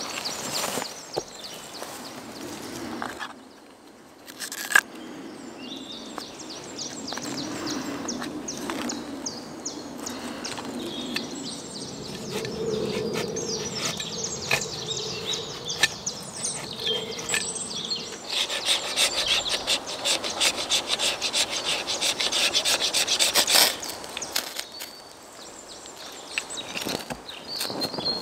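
Steel knife blade scraping a resinous fatwood stick into shavings and dust, a long run of scraping strokes that turns faster and louder for about five seconds near the end, then stops. A single sharp click about five seconds in.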